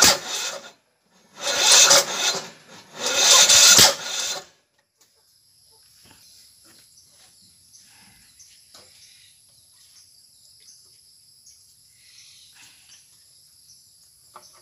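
Three loud, harsh bursts of scraping noise, each about a second long, in the first four seconds, then a quiet stretch with a steady high insect trill and a few faint clicks.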